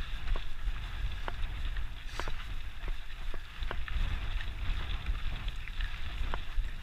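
Mountain bike riding over a dirt singletrack: a steady rumble of wind on the microphone, with scattered sharp ticks and rattles from the bike as it goes over the rough ground.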